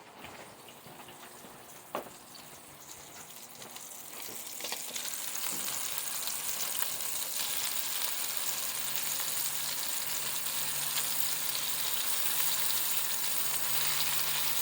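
Fish frying in hot bacon grease in a pan. The sizzle swells about four seconds in as more pieces go in, then holds steady and loud. There is a single sharp knock about two seconds in.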